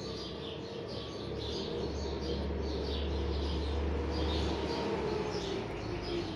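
Small birds chirping over and over, about two or three chirps a second, with a low hum that swells in the middle and fades again. The amplified speaker itself stays silent with its volume turned all the way up.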